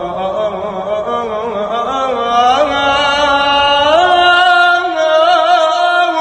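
A young man singing a mawwal, holding long melismatic notes with wavering ornaments and stepping up in pitch twice.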